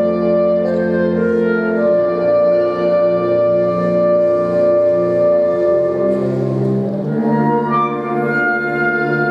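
Instrumental music with sustained wind and brass-like notes and no singing.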